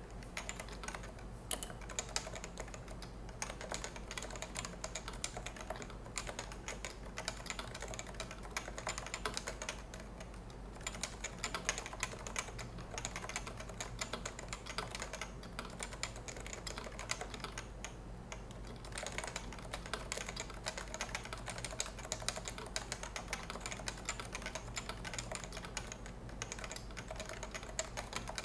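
Continuous fast typing on a Topre Realforce 103UB, a variable-force electrostatic capacitive keyboard whose key stems and stabilizers are greased with white lithium grease. The keystrokes run in a dense stream, with a few short pauses.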